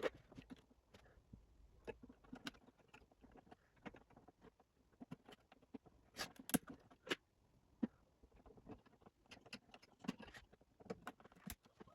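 Faint, irregular clicks and light knocks from computer hardware being handled, the firmest taps falling about six to eight seconds in.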